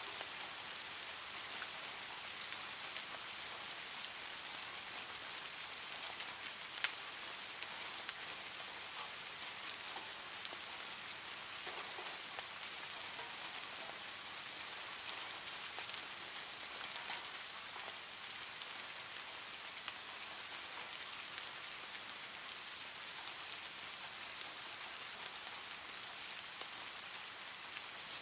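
Steady rain on a tin roof: an even hiss with scattered sharp drop ticks, one louder tick about seven seconds in.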